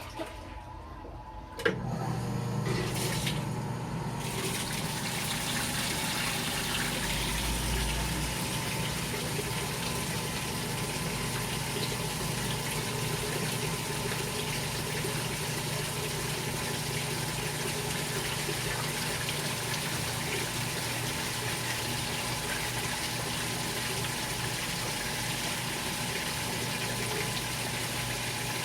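GE Filter-Flo washing machine: a sharp click about two seconds in, then a steady rush of water through the machine over a low electrical hum.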